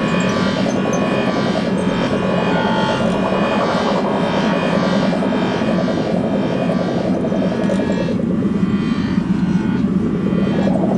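Computer-generated electronic drone: a thick, steady wash of layered tones over a low hum, produced by the DAVE motion-tracking software as the dancers move. The upper tones thin out about eight seconds in and then fill back in.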